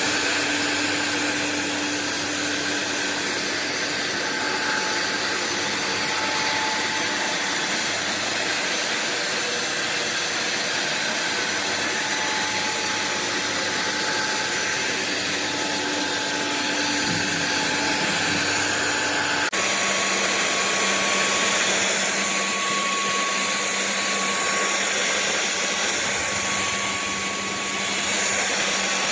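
Sulean X8 cordless stick vacuum running steadily. About two-thirds of the way through, its sound changes abruptly to a different steady hum with a clearer tone.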